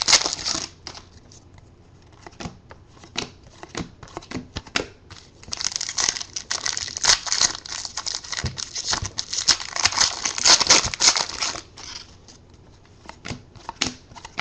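Foil trading-card pack wrappers crinkling and tearing as 2013 Elite football packs are opened, with cards being handled and flicked. The rustling is loudest for several seconds in the middle and quieter near the start and end.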